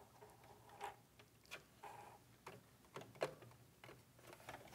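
Near silence with a handful of faint ticks and light handling noise: fingers pulling the bobbin thread up through the needle plate and drawing both threads back under a sewing machine's plastic presser foot.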